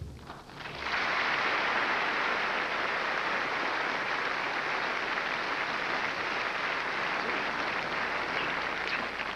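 A large theatre audience applauding, building up over the first second and then holding steady. A single sharp thump comes right at the start.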